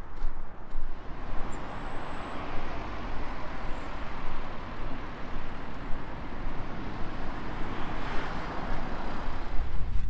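A road vehicle passing on the road, its noise swelling to a peak about eight seconds in and then fading away.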